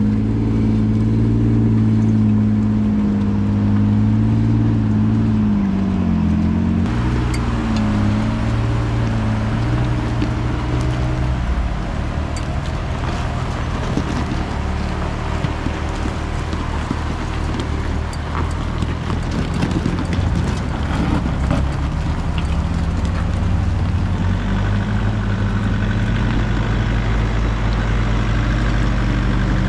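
Four-wheel-drive vehicle's engine labouring at low revs, its pitch rising and falling, with scattered clicks and knocks through the middle, settling to a steadier run near the end.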